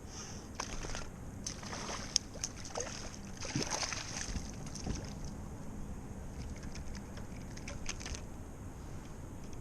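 Light water sloshing against a kayak, with scattered small clicks and knocks of gear being handled and one sharper click about two seconds in.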